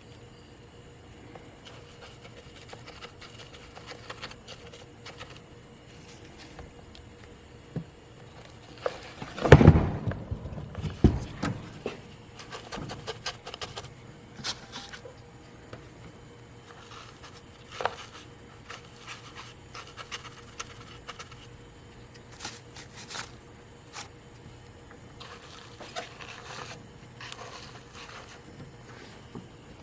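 A stick scraping and rubbing as it stirs and spreads JB Weld two-part epoxy on plastic, with scattered light knocks and one loud handling thump about ten seconds in.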